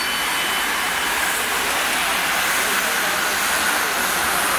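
Steady rushing noise of a roadside crowd and a bunch of racing bicycles passing close by.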